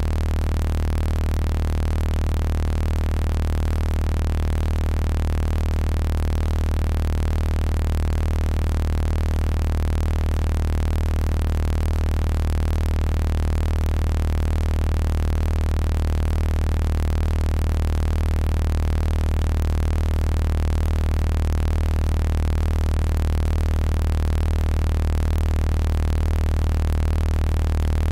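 Steady electronically generated sound-healing tones: a strong deep hum with many fainter, higher tones layered over it, all held unchanging. These are personalized frequencies derived from a voice sample.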